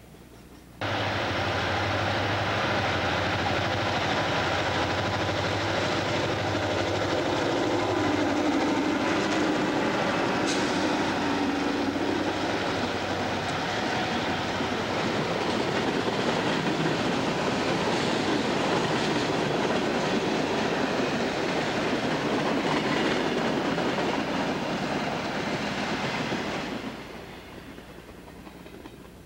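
A freight train passing close by: the drone of CSX diesel locomotives' engines in the first seconds, with the steady rumble and clatter of freight cars rolling over the rails. The sound cuts in suddenly about a second in and drops away near the end.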